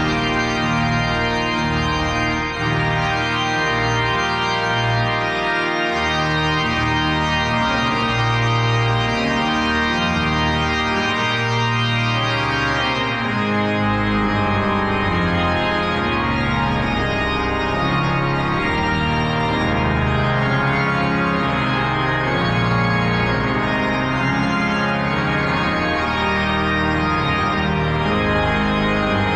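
Casavant pipe organ playing loud, sustained chords over a moving bass line.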